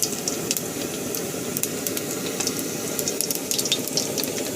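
Whole cumin seeds sizzling in hot mustard oil in a kadai: a steady hiss dotted with many small, sharp crackles.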